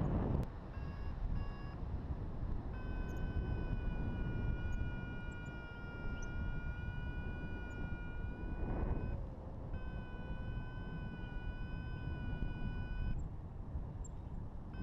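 Wind rushing over the microphone of a paragliding pilot's camera in flight. Over it, a steady high electronic tone holds for several seconds at a time and breaks off briefly about nine seconds in, after a few short beeps near the start.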